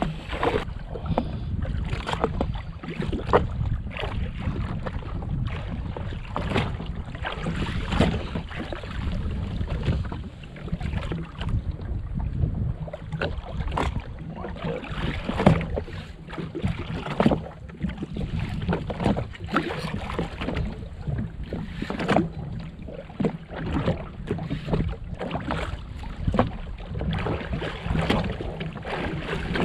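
Small waves slapping and splashing against a jet ski's hull, with wind buffeting the microphone and frequent short, irregular knocks.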